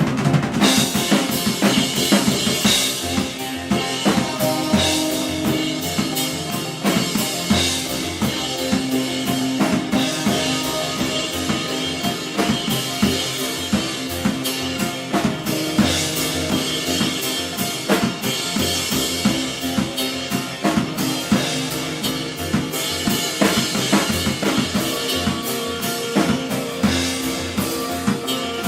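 A live band playing a song, with the drum kit dense and driving at the front: fast bass drum and snare hits and cymbal wash over sustained bass and guitar.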